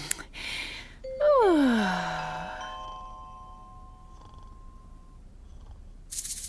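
Cartoon sound effects and music. A short swish comes first, then a long pitched tone sliding downward about a second in, leaving a steady ringing tone that fades. A loud hiss starts near the end.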